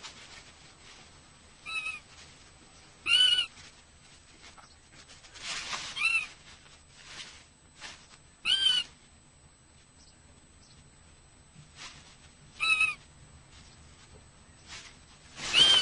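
Little owl calling: about six short, mewing call notes at uneven intervals, with soft rustling between some of them.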